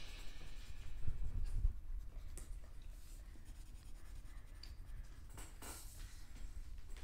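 Colored pencil scratching on paper as a drawing is shaded in, steady and faint, with a few short louder scrapes.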